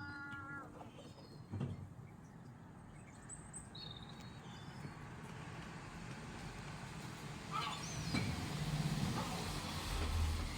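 A road vehicle going past, its noise swelling slowly to a peak near the end, with short high bird chirps and a few harsher bird calls over it.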